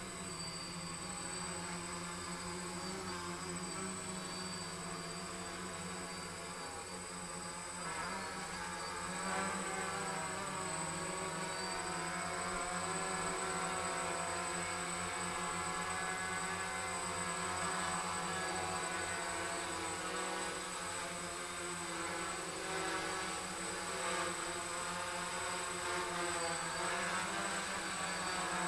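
Quadcopter's four SunnySky A2212 980KV brushless motors and 10-inch propellers running with a steady buzz, heard close up from a camera mounted on its frame. The pitch wavers up and down as the motors speed up and slow down, and it gets louder about eight seconds in.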